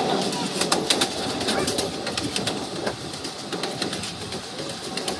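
Ride-on miniature railway train running along its track: a steady rumble with sharp, irregular clicks of the wheels on the rails.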